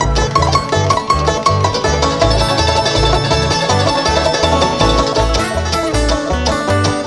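Live bluegrass string band playing an instrumental passage: rapid banjo picking over guitar, with a bass note on each beat.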